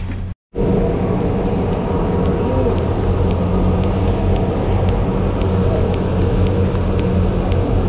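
Ferry's engines running with a steady low drone, with faint regular ticking about two times a second. The sound drops out for a moment about half a second in.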